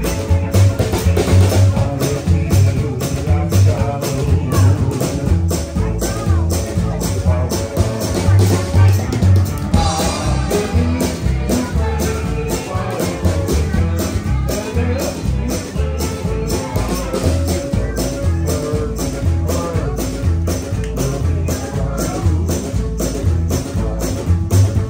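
Live small-band music with a steady drum-kit beat, electric guitar and a strong bass line, with crowd voices underneath.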